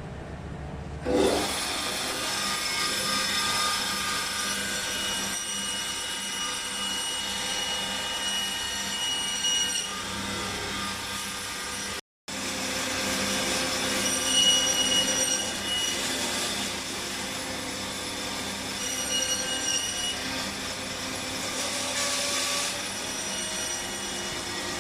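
Electric bone saw running and cutting salted fish into small pieces: a steady whine with a high, squealing ring that swells several times as the blade goes through the fish. The sound drops out briefly about halfway.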